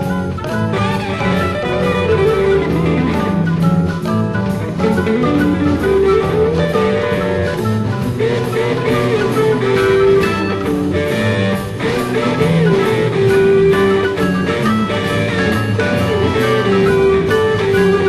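Early-1970s progressive rock studio recording in an instrumental passage: a drum kit keeps a steady beat under bass and keyboard lines, with a sustained melody line in the midrange.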